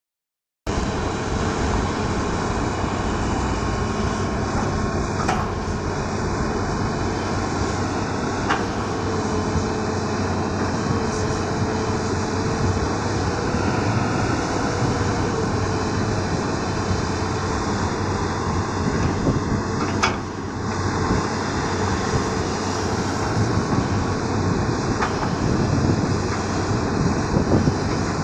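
Hitachi Zaxis 200 excavator's diesel engine running steadily under digging load, with a few sharp clanks scattered through it.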